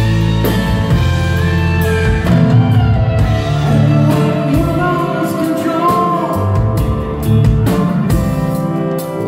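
Live rock band playing: strummed acoustic guitar, bass and drums, with a sung vocal line over them.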